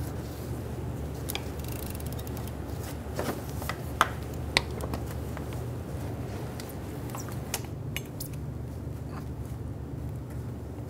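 Scattered light metallic clicks and clinks of a wrench on a serpentine belt tensioner while the belt is worked around the crankshaft pulley, sharpest twice about four seconds in, over a steady low hum.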